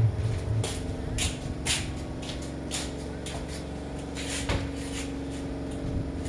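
Steady hum of a semi-automatic twin-tub washing machine's spin dryer running, with about ten irregular soft knocks and rustles over it.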